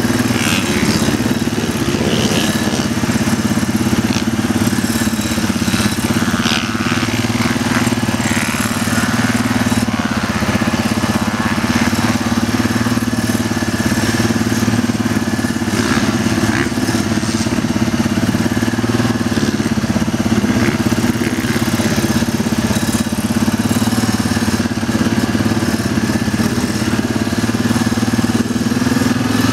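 Small off-road engine running at low, steady revs, the drone holding even in pitch and level.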